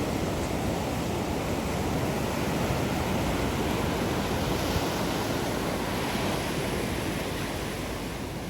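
Ocean surf washing steadily onto the beach.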